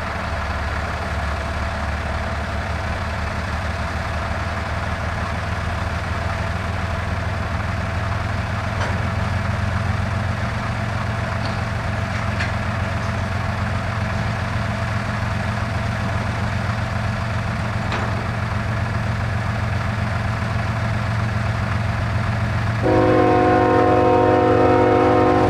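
Diesel freight locomotive approaching with a steady low engine rumble, then sounding its multi-chime air horn in a long loud blast near the end, breaking off briefly and starting again.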